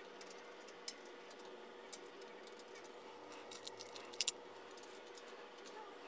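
Cage nuts being clipped into the mounting rail of a steel network rack: scattered small metallic clicks and snaps, with a quick cluster of them about three and a half to four and a half seconds in.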